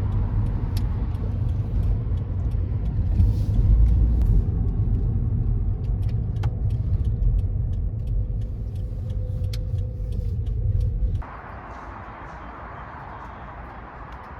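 Steady low road rumble of a car being driven, with scattered small clicks and ticks. About eleven seconds in it cuts off abruptly to a quieter, even hiss of ambience.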